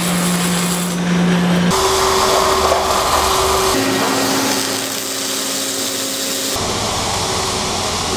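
Machine noise from a robotic truck-frame welding line: steady hissing over a hum. The sound changes abruptly three times, each time to a different steady hum.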